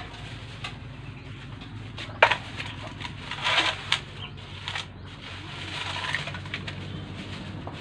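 Plastic bag crinkling and rustling in irregular bursts as raw pork is handled out of it into a pan, with a sharp crackle about two seconds in.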